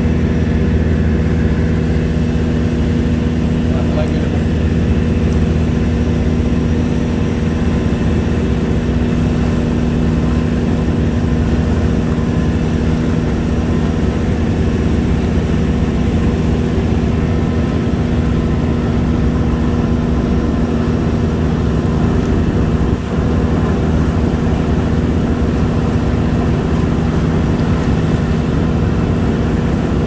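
A boat's engine running with a steady hum, with water rushing past the hull as the boat crosses choppy river waves.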